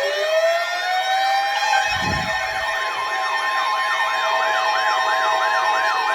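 Siren wailing up in pitch, then switching to a fast yelp that sweeps up and down about two and a half times a second, over steady tones. There is a brief low rumble about two seconds in.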